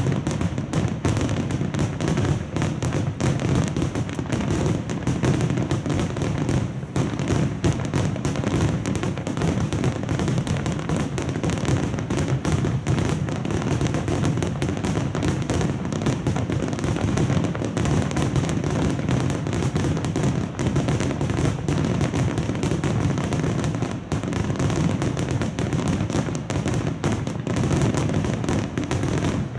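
Rapid-fire star mine barrage of aerial firework shells: booms and crackles so close together that they merge into one continuous rumble with no pause.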